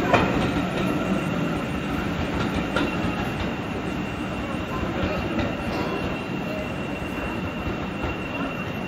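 Departing passenger train hauled by a BR Class 40 diesel-electric locomotive: coach wheels rumbling on the rails with a few clicks, fading steadily as it moves away, with a thin steady high whine.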